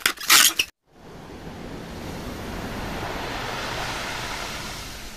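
A man's short excited shout that cuts off abruptly, then after a moment's gap the rush of surf washing over a pebble beach, swelling and then slowly fading.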